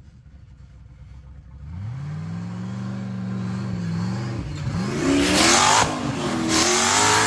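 UTV engine revving up from a low idle about two seconds in, then two louder bursts of hard revving near the end.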